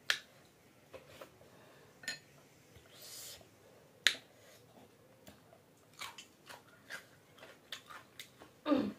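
Close-up eating sounds: a few sharp clicks of a spoon and dishes, the loudest about four seconds in, then a run of small wet chewing clicks from about six seconds on, ending in a short louder mouth sound.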